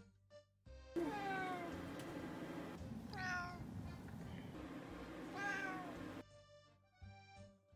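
A domestic cat meowing three times, about two seconds apart; each meow bends in pitch.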